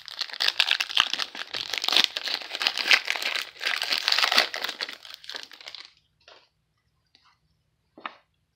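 Foil wrapper of a football trading-card pack crinkling as it is opened and handled, a dense crackle for about six seconds, then a couple of brief rustles near the end.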